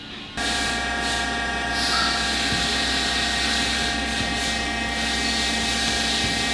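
Milling machine spindle running steadily with a low hum and a steady whine while drilling holes in an aluminium plate clamped in its vise; it starts abruptly just after the beginning.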